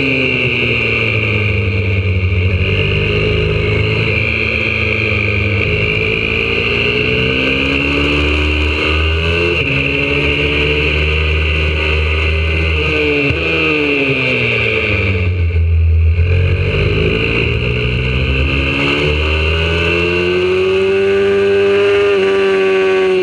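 Onboard sound of a YCF 125cc four-stroke single-cylinder pit bike engine at racing speed: the revs fall at the start, then rise and fall repeatedly with gear changes, with a sudden jump about halfway through and a long climb in revs near the end.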